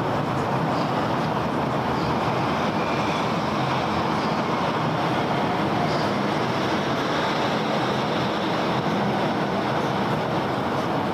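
Steady rumble of city street traffic, an even wash of engine and tyre noise with a few faint high ticks.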